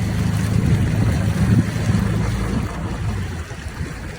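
Boat motor running steadily at low speed, its hum easing off about two and a half seconds in.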